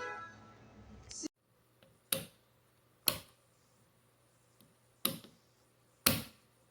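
Four sharp clicks in two pairs, a second apart within each pair, over a faint steady low hum, after music and speech cut off about a second in.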